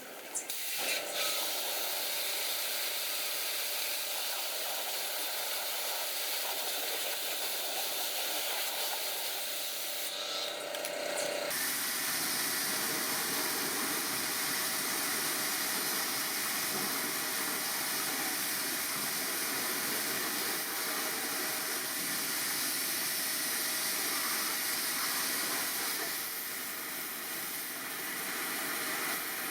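Steady, loud hissing of a high-pressure spray during an air-conditioner cleaning job. It starts about a second in, and its tone deepens about eleven seconds in, as if the jet has moved onto a different surface.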